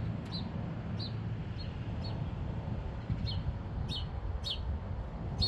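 A bird calling with short, high chirps repeated every half-second to a second, over a low steady background rumble.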